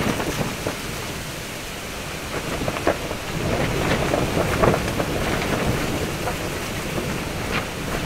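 Strong gusty wind buffeting and shaking a Circus TC DX cotton-polyester tent, a steady rushing rumble that swells about two and a half seconds in, with a few short sharp cracks scattered through it.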